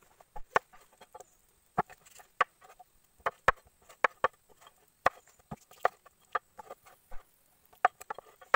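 Steel cleaver chopping a raw chicken into pieces on a wooden cutting board: about a dozen sharp chops at an uneven pace, the blade hacking through bone and meat into the wood.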